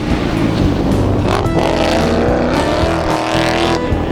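Car engines revving on a racetrack, their pitch rising and falling, with sudden changes about a second and a half in and near the end.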